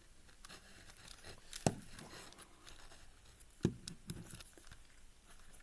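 Fingernails picking and peeling sticky tape off a plastic 5x5 Rubik's cube: faint scratching and small clicks, with two sharper knocks, one about one and a half seconds in and one about three and a half seconds in.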